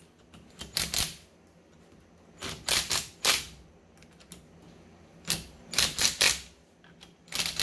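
Ring gear bolts being run into a differential carrier with a wrench: short bursts of rapid clicking, in four groups of two to four bursts.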